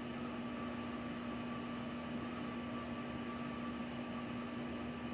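Steady room tone: a constant hiss with a low electrical hum and a faint, higher steady tone over it.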